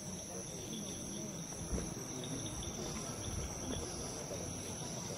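Steady, high-pitched chirring of forest insects over a low rumble, with a single brief thump about a second and a half in.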